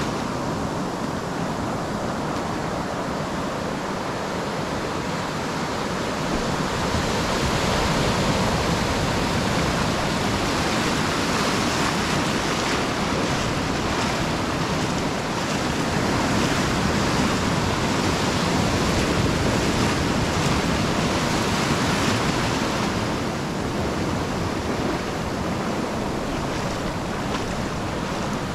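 Small surf breaking and foamy shallow water washing in and out over sand, a continuous hiss that swells and eases with the waves.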